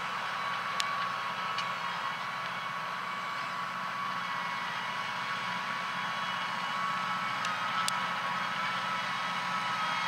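Case IH Maxxum 120 tractor engine running steadily under load while pulling a five-furrow plough, its note rising slightly about seven seconds in. A few short, sharp clicks stand out above it.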